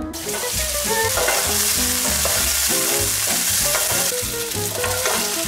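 Potato gnocchi sizzling in hot olive oil in a non-stick frying pan, stirred with a wooden spoon: a steady, dense frying hiss.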